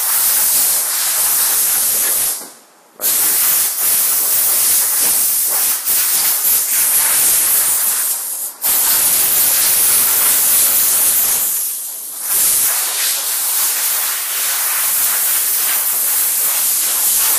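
High-pressure spray wand at a car wash, a loud steady hiss of spray. It cuts off for under a second about two seconds in, again briefly near the middle, and dips once more about twelve seconds in, as the trigger is let go.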